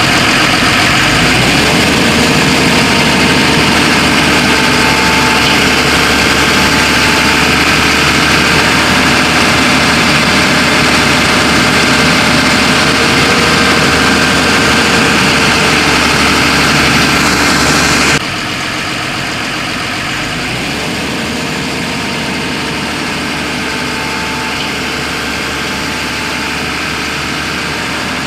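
Diesel engine of a JCB 3DX backhoe loader running steadily. About eighteen seconds in it drops suddenly in level.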